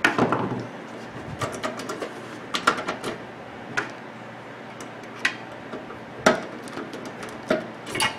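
Irregular sharp clicks and knocks, about ten of them, from a screwdriver and metal parts being handled while working on a microwave's fuse mounting.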